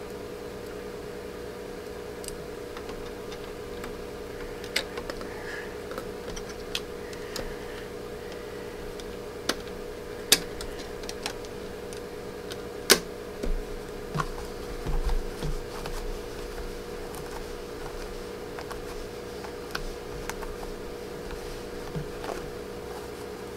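Scattered light clicks and taps from loading a new bobbin into a sewing machine's bobbin case and bringing up the thread, over a steady hum. The machine is not stitching.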